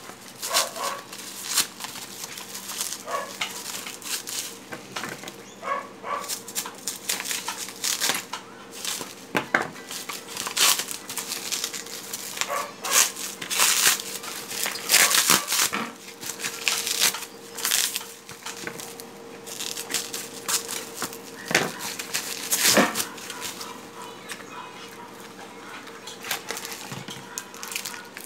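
Packaging of a new pneumatic door closer crinkling and crackling in quick, irregular rustles as it is cut and pulled open with scissors.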